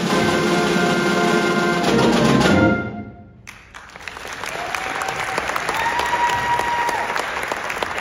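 A school concert band of brass, woodwinds and percussion holds its final chord, which stops about two and a half seconds in and dies away to a brief hush. The audience then applauds, with two long high calls over the clapping.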